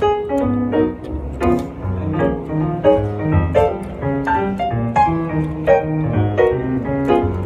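Piano being played: a continuous run of melody and chords over low bass notes struck about twice a second.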